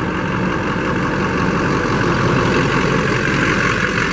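Lifted Chevrolet Silverado's Duramax diesel engine running steadily at low speed as the truck rolls slowly over the microphone.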